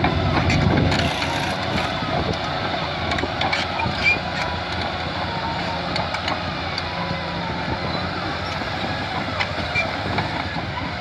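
A Caterpillar D5N crawler bulldozer working, its diesel engine running steadily while the steel tracks clank and squeak. It is loudest in the first second.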